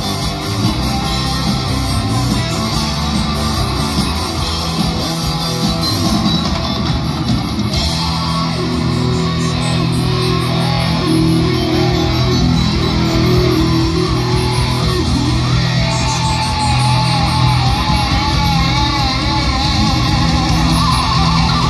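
Rock music with guitar and bass, playing loudly and continuously.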